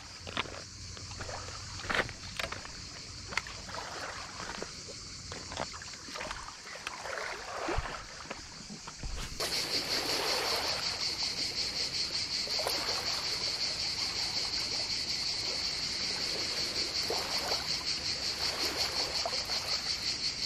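Crickets chirping in a high, fast-pulsing, steady chorus that starts abruptly about nine seconds in, over small waves lapping on a pebble shore. Before it, scattered light clicks and knocks.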